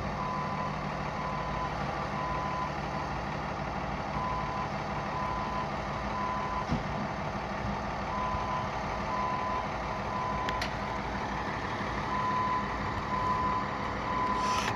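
Electronic beeping at one pitch, repeating in short beeps over the steady hum of an idling engine.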